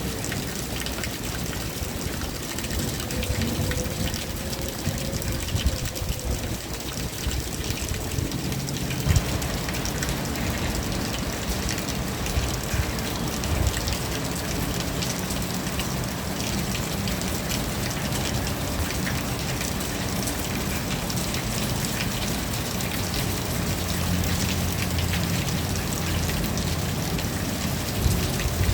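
Steady rain falling, a dense patter of drops hitting surfaces, which grows a little fuller about nine seconds in.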